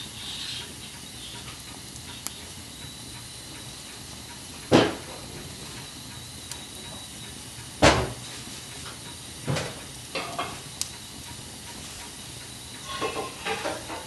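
Wood log fire burning in a fireplace: a steady soft hiss with scattered crackles, two loud pops about five and eight seconds in, and a quick run of smaller snaps near the end.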